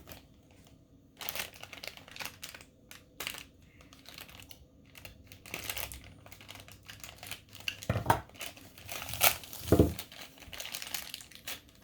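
Packaging crinkling and tearing in irregular bursts as a small figure is unwrapped from a countdown calendar box, with a couple of dull knocks from the box being handled near the end.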